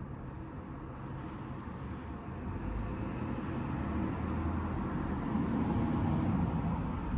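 Wind rumbling on the microphone, a steady low noise that grows louder over the second half.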